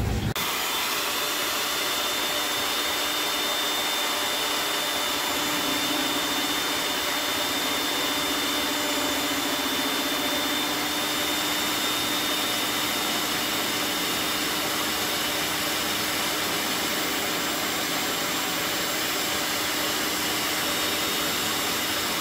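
Electric hand mixer running steadily, its beaters whisking egg whites in an enamel bowl: a continuous motor whir with a thin high whine.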